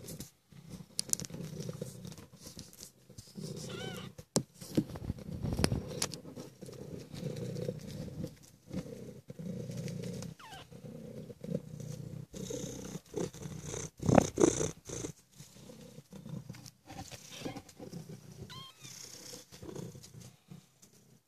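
Maine Coon mother cat and her ten-day-old nursing kittens purring in a steady pulsing rumble, with a few brief high squeaks.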